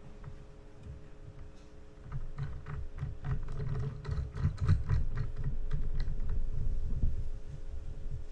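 Hands handling a spinning reel and its line: a run of light, irregular clicks over a low rumble of handling noise, starting about two seconds in.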